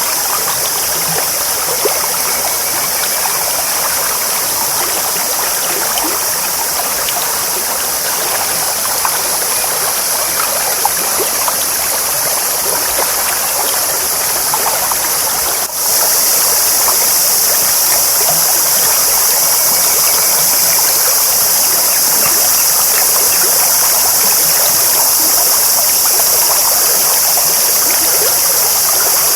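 A clear stream babbling steadily. A brief dropout about halfway through, after which the water is slightly louder.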